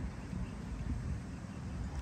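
Wind on the microphone: a steady low rumble outdoors, with no distinct splashes or clicks.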